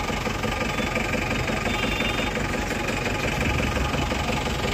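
Bus engine idling steadily, a continuous low rumble.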